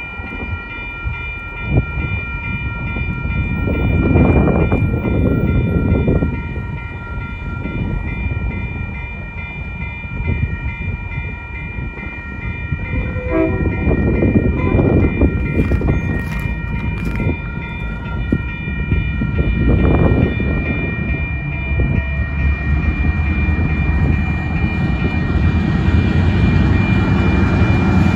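Union Pacific diesel locomotive idling: a steady low rumble with a steady high whine over it, swelling louder several times, and a brief run of short tone pulses about halfway through.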